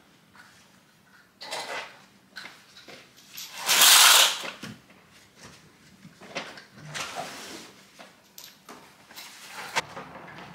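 Knocks and clatter of things being handled in a kitchen, with one louder burst of noise lasting about half a second about four seconds in.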